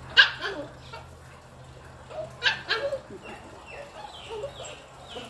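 Small puppy yipping and whining in play: a loud sharp yelp just after the start, a few more around the middle, then a run of short, high, falling whines.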